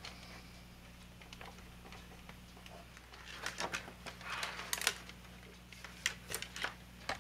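Scattered clicks and rustles of plastic model parts and wiring being handled, thickest in the second half, over a steady low hum.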